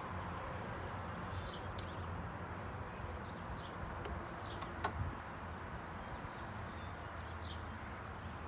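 Outdoor ambience: a steady low rumble with faint bird chirps scattered through it, and a sharp click about five seconds in.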